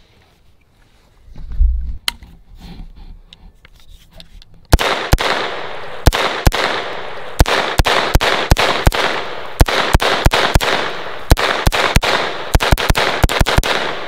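Freshly cleaned and lubed HK SP5 9mm firing a long string of semi-automatic shots, starting about five seconds in. The shots come at an uneven quick pace that speeds up near the end, with no stoppage: the gun is cycling reliably again after its earlier malfunction.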